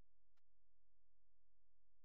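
Near silence: a faint steady low hum of room tone.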